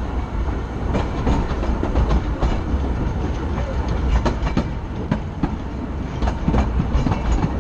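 Narrow-gauge steam train's coach rolling slowly along the track: a steady low rumble with irregular sharp clicks and knocks from the wheels running over rail joints.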